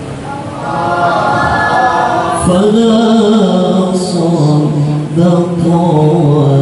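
A man's voice reciting the Quran in the melodic tilawah style into a handheld microphone, drawing out long ornamented notes. The pitch steps lower about halfway through.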